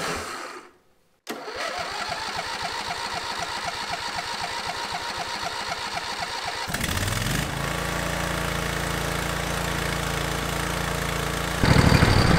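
Briggs & Stratton 24 hp V-twin engine of a Cub Cadet LT1024 lawn tractor being started with its electric starter. It cranks rhythmically for about five seconds and catches. It revs up, settles into a steady run, and gets louder near the end. This is its first start after an oil change.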